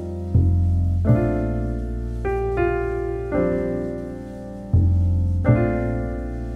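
Background piano music: slow chords struck about once a second, each one ringing and fading before the next.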